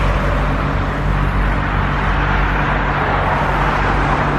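Steady roadside traffic noise: a continuous rush of passing cars with a constant low engine hum underneath.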